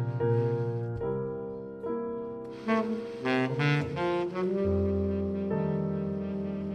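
Baritone saxophone and piano playing a duet: sustained chords and short phrases, with a low note held through the second half.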